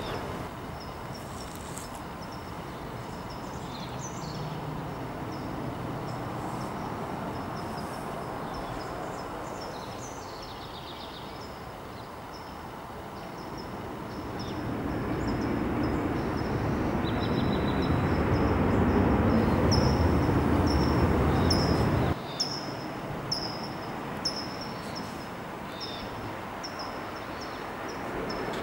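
Outdoor urban ambience: a steady background noise that swells into a louder low rumble in the second half and cuts off suddenly, with small birds giving short high chirps over it, most often near the end.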